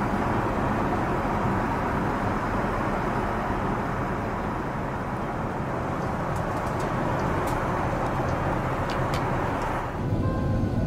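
Steady, even roar of an Airbus A380's cabin noise in cruise flight. About ten seconds in it gives way to music.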